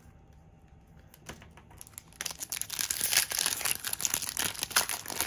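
Foil Magic: The Gathering booster pack wrapper crinkling and tearing as it is opened by hand, starting about two seconds in.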